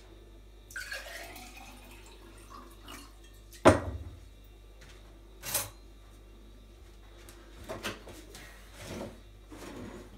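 Water poured from a jug into a glass, the pitch rising as the glass fills. Then a sharp knock about three and a half seconds in, the loudest sound here, another about two seconds later, and a few softer knocks.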